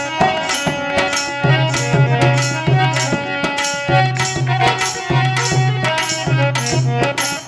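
Instrumental break of a Rajasthani Holi folk song: hand drums beat a steady rhythm under a held melody line, with no singing.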